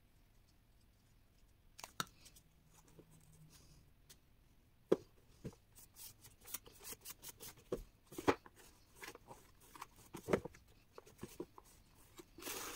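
Faint handling of a cardboard gift box: hands rubbing and smoothing a glued paper strip onto its side, with scattered paper rustles and light knocks as the box is turned and set upright, mostly in the second half.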